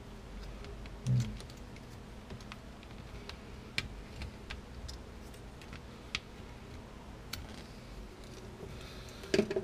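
Light plastic clicks and taps as clear plastic lightning-effect pieces are handled and snapped together, a few scattered ticks, with a brief low sound about a second in.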